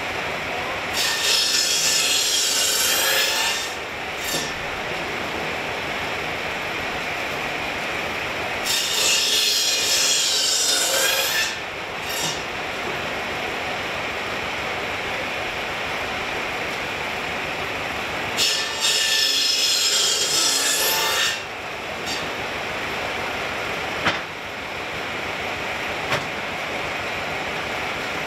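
Large circular sawmill blade running steadily and making three cuts through a log, each cut loud for about three seconds, with about five to seven seconds of running between cuts.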